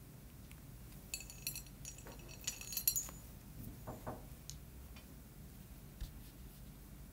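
Faint, light clinking of small hard objects, a cluster of short ringing clicks lasting about two seconds, starting about a second in.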